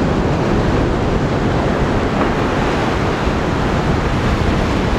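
Steady noise of ocean surf breaking and washing over a rocky shore, with wind buffeting the microphone.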